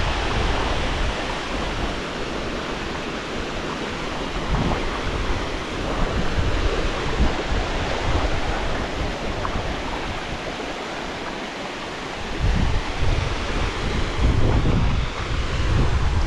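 Steady rush of water pouring over a small dam into the river below. Low wind buffeting on the microphone comes in during the last few seconds.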